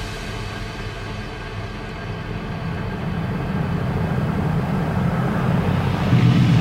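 Inboard engine of a classic wooden mahogany runabout running at low speed on the water. It is a steady low rumble that grows louder as the boat comes closer.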